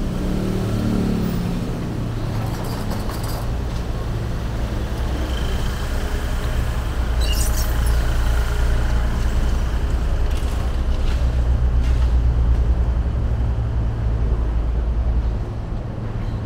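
City street traffic: a steady rumble of vehicle engines passing, with an engine note falling in pitch near the start and a brief hiss about seven seconds in.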